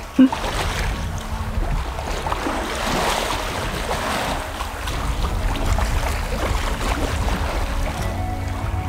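Wind buffeting the microphone over the steady rush of water and breeze past a sailboat under sail, with a short knock right at the start.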